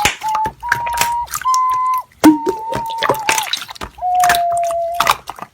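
Clear slime being squished and poked, making sharp crackling clicks, over a melody of held, whistle-like high notes that each dip in pitch as they end, with one lower, longer note near the end.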